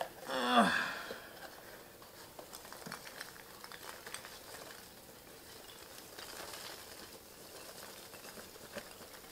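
Styrofoam packing peanuts rustling and crackling as hands dig through a shipping box full of them. About half a second in, a short vocal sound falling in pitch stands out as the loudest thing.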